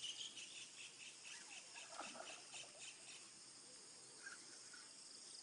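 Faint insects chirping and buzzing, with a quick run of short high chirps about five a second that stops after roughly three seconds.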